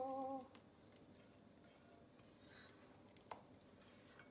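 Near silence while a spatula scrapes a thick melted nut-butter and honey mixture out of a stainless saucepan, with a sharp click about three seconds in as the spatula knocks the pan.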